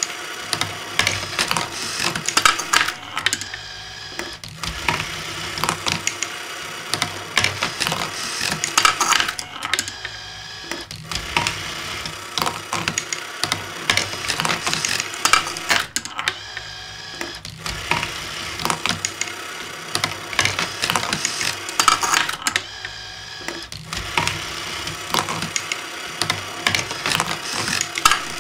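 Junk-built marble machine running: small motors in its CD-ROM-drive lifters and receipt-printer mechanism whirring while marbles roll and click through the plastic funnels and tracks. The clatter goes in a cycle that briefly thins out about every six to seven seconds.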